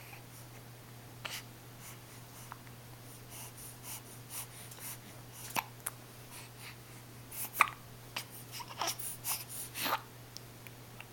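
Hiccups: short, sudden hiccups several seconds apart, the loudest about seven and a half seconds in, then a quicker run of smaller sounds.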